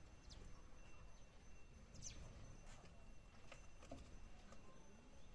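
House sparrows giving a few faint, short chirps while they squabble over food, with a low background rumble.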